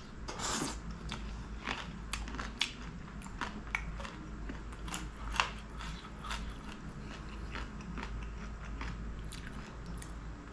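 Close-up sound of a person eating a curried chicken drumstick: biting meat off the bone and chewing, with many short wet smacks and clicks scattered throughout.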